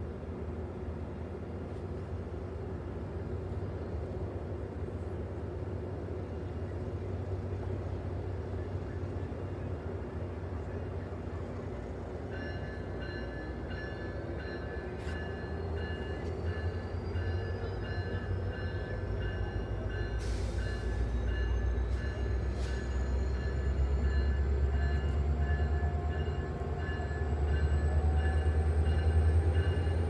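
Metrolink MP36 diesel locomotive and its train approaching, the low engine rumble growing slowly louder. From about twelve seconds in, a steady repeated ringing at several pitches starts, and a faint whine climbs slowly in pitch as the train draws near.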